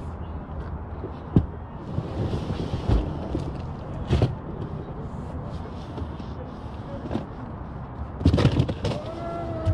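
Asian elephants working at giant pumpkins: scattered dull knocks and thuds, with a cluster of louder knocks near the end, over a steady outdoor background.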